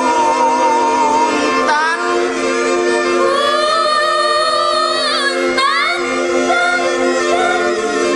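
Live ensemble music blending traditional Sundanese and Minangkabau instruments with singing: a steady held drone under a wavering melody line that turns into sliding, gliding pitches about halfway through.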